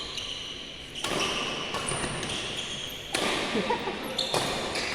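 Badminton play in a sports hall: several sharp racket hits on the shuttlecock, with short high squeaks of sports shoes on the court floor, echoing in the hall.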